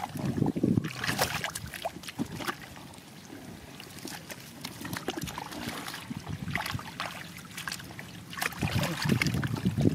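Hands splashing and sloshing through shallow muddy water and weeds, in irregular bursts with quieter stretches between.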